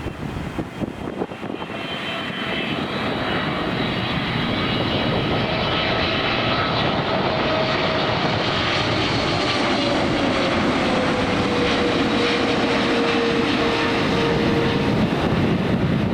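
Airliner coming in to land as it passes close by. Its engine noise grows steadily louder, with a whine that slowly falls in pitch.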